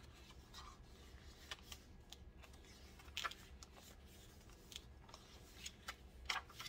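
Faint rustling of paper and card with a few light taps and clicks as journal pages and journaling cards are handled, over a low steady hum.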